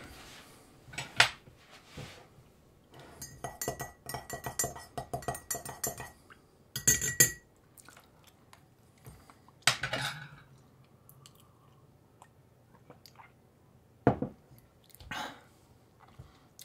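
Teaspoon clinking against crockery: a quick run of light taps with a ringing tone about three seconds in, a louder clink a second later, then scattered single clinks.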